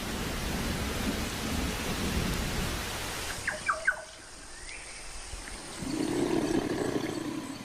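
Heavy rain pouring, which gives way about three seconds in to a quieter stretch with a few brief chirps; near the end, a low rumble of thunder swells up.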